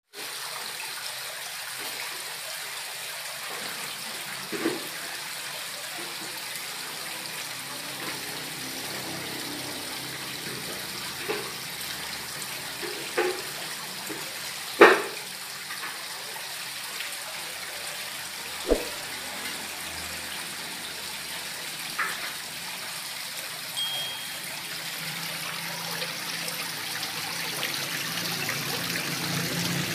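Water trickling steadily down a garden rock-relief wall into a small fish pond, with several short, sharper plops and splashes breaking through, the loudest about halfway through.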